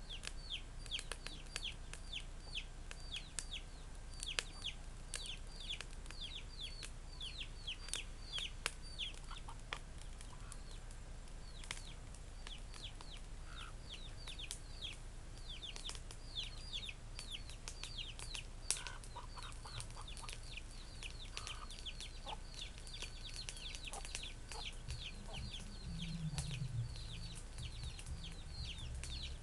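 Chicks peeping continuously in rapid, short, downward-sliding notes, with a hen clucking now and then.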